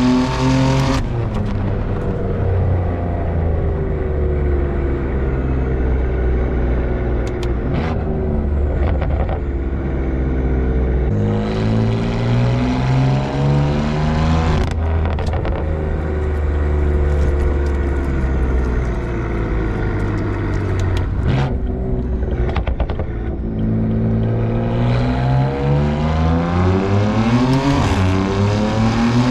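BMW F82 M4's S55 twin-turbo inline-six exhaust, through catless downpipes, a single mid-pipe and an aftermarket EOS muffler, while the car is driven. The engine note rises and falls with throttle and goes through a few abrupt gear changes, with a few sharp cracks along the way.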